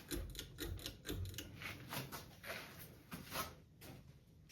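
Irregular light clicks and rustles of handling close to the microphone, several a second.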